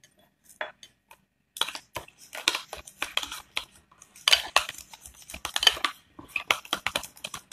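Spoon stirring and scraping against the inside of a bowl of mayonnaise-and-cream dressing. A few light taps come first, then a quick, busy run of clinks and scrapes from about a second and a half in.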